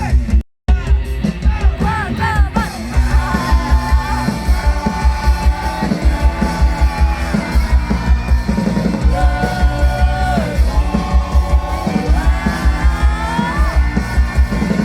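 Loud rock music: pounding drums and bass under a singing voice that bends in pitch. The sound drops out completely for a moment about half a second in, then comes back at full level.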